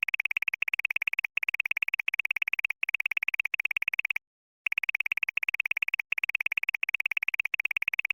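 A synthesized trilling sound effect: a rapid, even stream of high clicks, in bursts of about a second and a half with brief breaks and a half-second pause about four seconds in.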